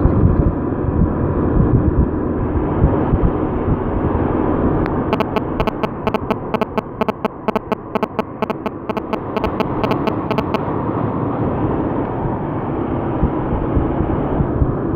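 Steady low rumble and road noise of a moving vehicle. In the middle it carries a run of fast, even ticks, about four a second.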